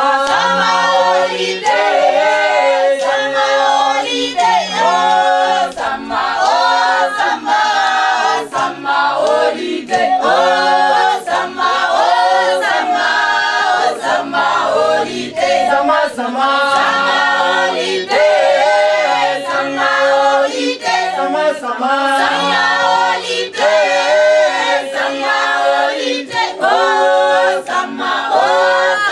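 A mixed group of men's and women's voices singing a cappella in harmony, with sharp percussive beats kept in time with the song.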